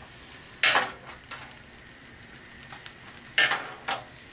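Short scraping, sizzling bursts as butter is rubbed onto hot oven-grilled whole tilapia on a wire rack over a tray of drippings. One comes about a second in, then two close together near the end.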